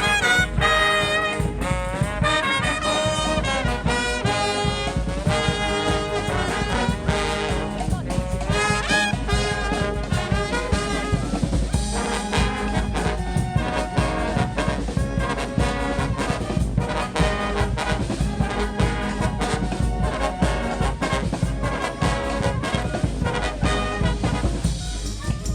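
Street brass band playing live: trumpets and trombones carry the tune together over a busy drum beat.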